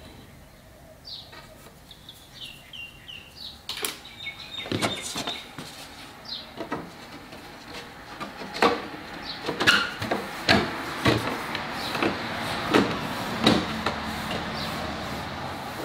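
A wooden rail and a rose gum inlay strip being handled and knocked against a workbench: a string of sharp wooden knocks and taps that starts about four seconds in, with a few short high chirps before it.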